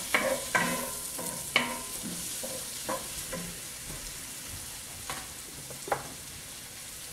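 Cubed potatoes and onions sizzling in butter in a cast-iron skillet, a steady frying hiss. In the first second or two a wooden spoon knocks and scrapes against the iron pan several times while stirring, then the sizzle goes on with only a few scattered clicks.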